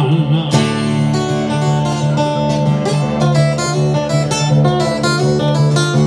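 Steel-string acoustic guitar played solo in a blues instrumental break between verses: picked notes over a steady bass.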